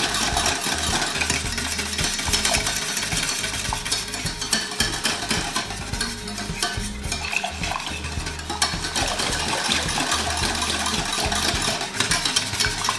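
Wire whisk beating thick béchamel sauce in a stainless steel pot: fast, continuous scraping and ticking of the wires against the pot as the flour-and-butter roux and milk are whisked hard to break up lumps.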